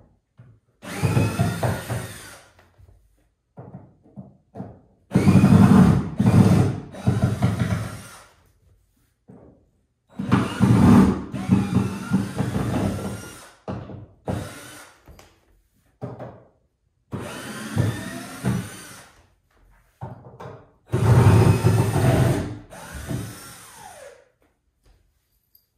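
Power drill driving screws out of a wooden shipping crate, running in about eight bursts of one to two seconds with short pauses between, its pitch rising as each burst spins up.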